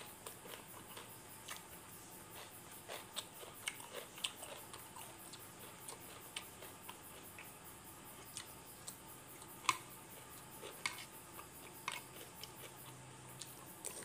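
A person chewing and eating, with irregular small clicks of mouth and food.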